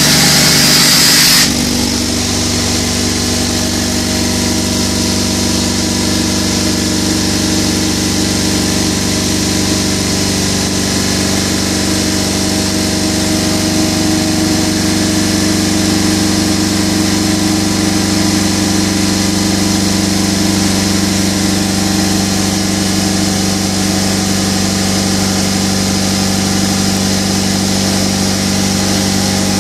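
Home-built air compressor made from an FSO 1.6 four-cylinder engine block, driven by an electric motor, running steadily. A loud hiss sounds for the first second and a half, then only the even hum of the machine goes on.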